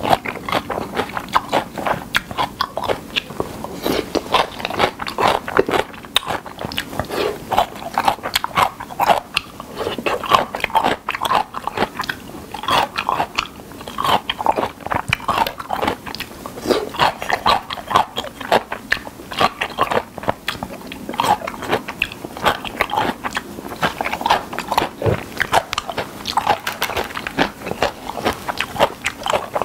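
Close-miked, continuous chewing of spicy whelk and somen noodle salad (golbaengi somyeon muchim). The bites are wet and crunchy, with many small clicks and smacks one after another.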